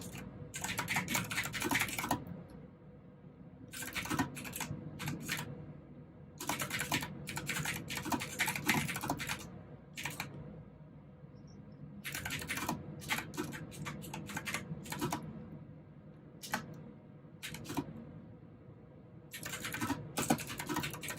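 Fast typing on a mechanical keyboard with clicky blue switches, in bursts of a second or a few seconds broken by short pauses.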